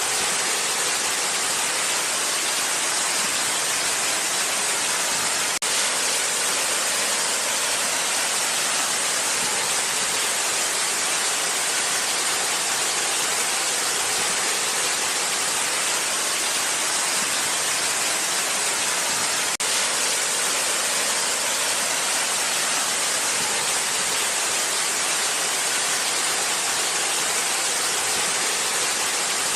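Waterfall: a steady, unbroken rush of falling water, hissy and bright, with little deep rumble.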